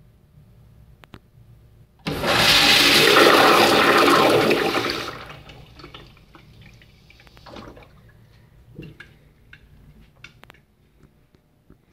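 Crane blowout urinal flushing through its Sloan flushometer valve: a sudden loud rush of water about two seconds in, holding for about three seconds, then dying away to faint trickles.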